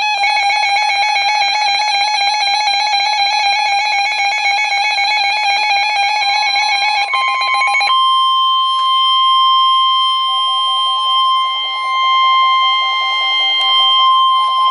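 A rapidly warbling electronic alert alarm sounds, breaks off about eight seconds in and starts again about two seconds later. From about six seconds in, the NOAA Weather Radio warning alarm tone, a steady single pitch, sounds over it, heralding a new warning.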